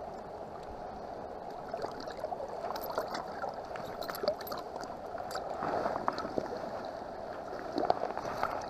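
Shallow river current running over rocks, a steady rush, with small splashes and ticks from hands working in the water as a small fish is unhooked and released.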